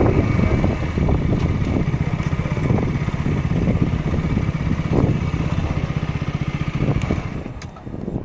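KTM Duke motorcycle engine running at low revs with a steady pulsing beat, dying down near the end.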